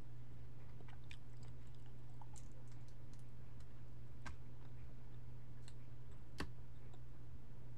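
A few sharp clicks and soft crackles as the shell is peeled off a cooked jumbo shrimp by hand, over a steady low hum.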